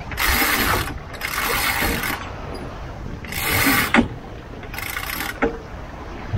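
Sailboat winch ratcheting in four bursts as a line is hauled in, each burst lasting about half a second to a second, over wind and water noise.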